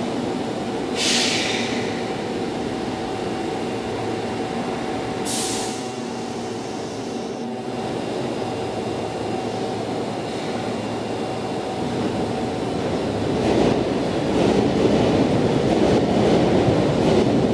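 Osaka Municipal Subway Chuo Line train rolling slowly into the station, its wheels and running gear growing louder over the last few seconds as it comes close. Two short sharp hisses about one and five seconds in.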